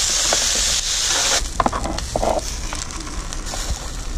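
Sculpin fillets sizzling in oil on a hot flat-top griddle. The hiss drops off about a second and a half in, and a metal spatula then scrapes and knocks on the griddle as the fish is pushed into a plastic container.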